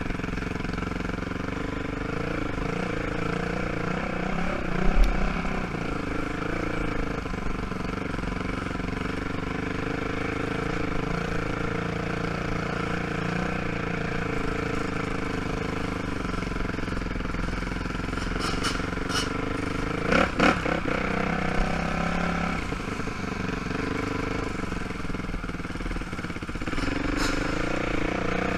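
ATV (quad) engine running steadily at low speed. Short loud knocks come about five seconds in and again in a quick cluster about twenty seconds in.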